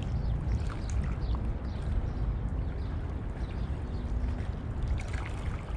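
Wind buffeting the camera microphone in a steady low rumble, with faint short high chirps scattered through it.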